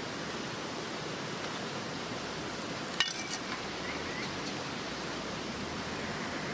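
A steady rushing hiss with one sharp clink about three seconds in, followed by a few faint ticks.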